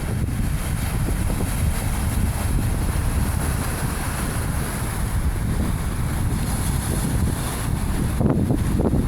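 Sea waves washing against the shore under strong wind, with wind buffeting the microphone as a steady low rumble. A wave surges up louder about eight seconds in.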